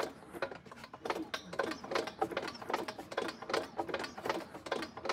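Small opposed-cylinder aircraft engine being turned over by hand at its wooden propeller, with the top spark plugs out: an even run of mechanical clicks, about three a second.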